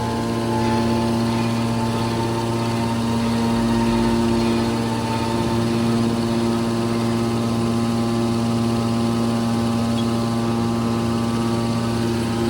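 Mobile car baler's power unit running steadily, a constant even hum with no change in pitch.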